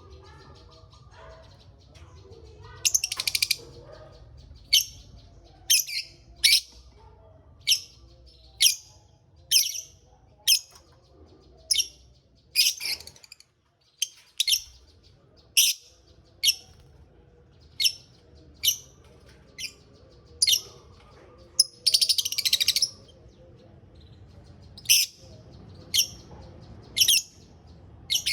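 Lovebirds giving short, high-pitched chirps about once a second, with two longer bursts of chatter about three seconds in and about twenty-two seconds in.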